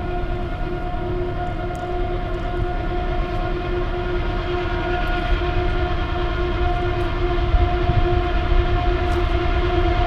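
Passing train heard across the river: a long, steady held tone with overtones over a continuous low rumble.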